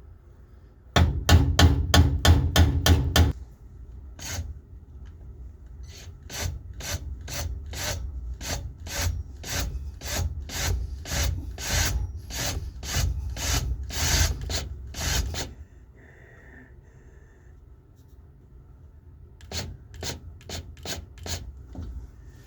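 Hammer striking a metal punch to start a pilot hole in the car door's sheet metal. First comes a quick, loud run of blows, then a steady run of lighter taps about twice a second, and a few more taps near the end.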